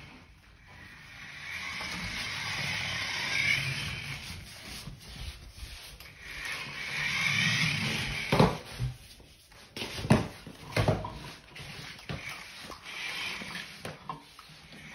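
Toy remote-control monster truck driving on a wooden floor, its small electric motor and gears whirring in two long bursts, followed by several sharp knocks.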